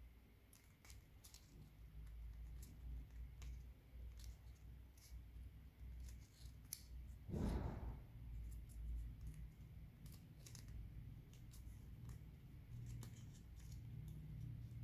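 Origami paper being folded and creased by hand: faint crisp rustling with many small sharp crackles, and one louder rustle about seven and a half seconds in.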